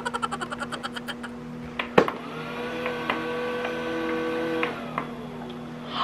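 Rapid clicking that fades out in the first second, then a click about two seconds in as a button is pressed. A Jallen Gabor IS28A robot vacuum's motor starts with a short rising whine, runs steadily for about two and a half seconds, and stops with a click. It is running on the battery that came already fitted.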